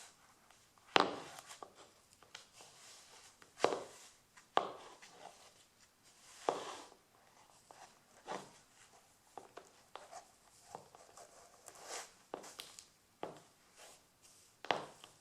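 Stiletto heels of black leather court shoes clicking on a parquet floor: sharp, separate heel strikes at irregular spacing, a few steps at a time with pauses between.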